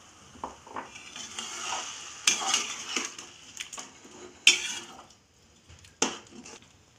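A metal slotted spoon stirring water into a curry gravy in a cooking pan, knocking and scraping against the pan several times.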